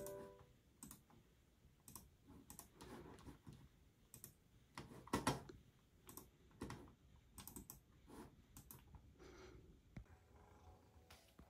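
Faint, irregular clicks of typing on a computer keyboard and clicking a mouse, loudest about five seconds in.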